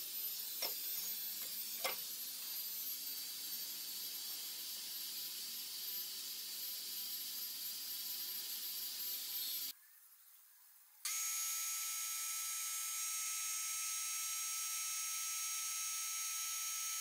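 Air-powered power carver handpiece running as it engraves a wooden knife handle: a steady hiss with a thin high whine. It stops briefly about ten seconds in, then runs again with a steadier whine of several pitches.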